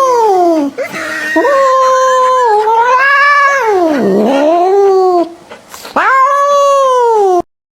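A cat yowling in several long, drawn-out calls that slide up and down in pitch, cutting off abruptly near the end.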